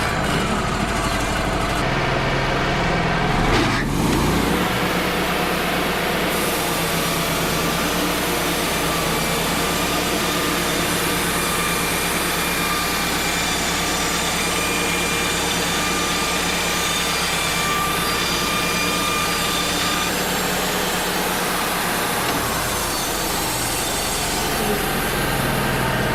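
Wood-Mizer LT35 portable bandsaw mill running, its band blade cutting through an air-dried white pine board. A steady whine settles in about four seconds in and eases off about two-thirds of the way through.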